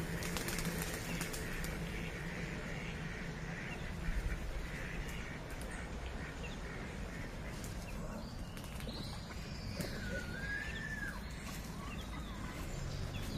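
Ducks at a park pond: wings flapping and ducks calling over a steady outdoor hiss. One whistled bird call glides up and down about two-thirds of the way through.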